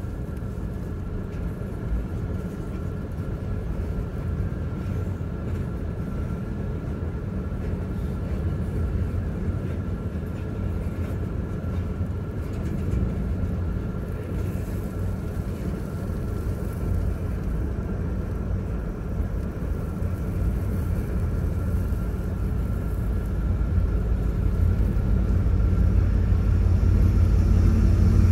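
Double-stack intermodal train's well cars rolling past, wheels rumbling steadily on the rails, heard from inside a car with the heater running. Near the end the rumble swells as the mid-train distributed-power diesel locomotive draws level.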